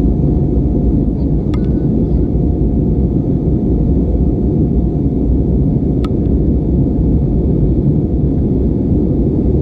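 Steady low rumble inside the cabin of an Airbus A320-232 in flight after takeoff: its IAE V2500 engines and the airflow heard from a window seat over the wing, with a faint steady hum. Two faint clicks come through, about a second and a half in and again about six seconds in.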